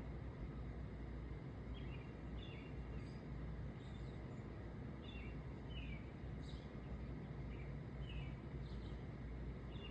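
Outdoor ambience: a steady low background rumble, with a small bird giving short, falling chirps about once a second.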